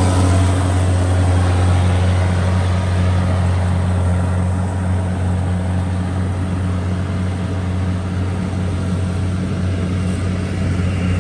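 Rice combine harvester engine running with a steady low drone, a little fainter over the middle.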